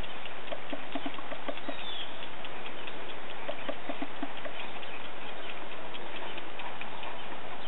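Rural outdoor ambience: a steady hiss with scattered light ticks, soft footfalls of a horse walking on grass, and a bird's short falling chirp about two seconds in.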